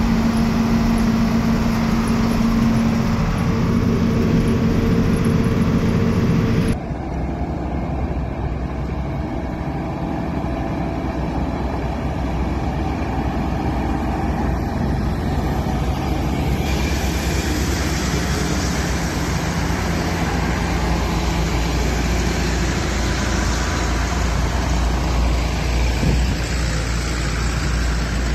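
Tractor engine running steadily with tyre noise, heard from inside the cab while driving on a gravel road. After a cut about seven seconds in, tractors drive past on the road with their diesel engines running, louder from about halfway through as a tractor comes close.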